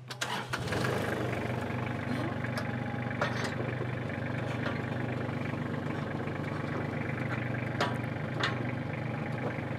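Compact tractor engine starting just after the beginning, then settling into a steady idle.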